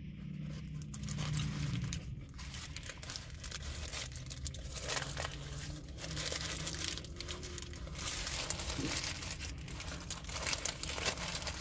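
Paper sandwich wrapper crinkling and rustling in the hands around a fried chicken sandwich, mixed with biting and chewing, in short irregular crackles.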